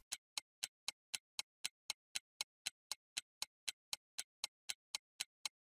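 Clock-like ticking sound effect, even and steady at about four ticks a second, marking thinking time for a quiz question.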